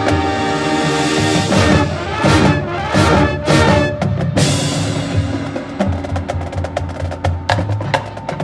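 A school marching band plays its show with held chords and drums. About halfway through, the chords thin out under a run of sharp percussion strikes and clicks.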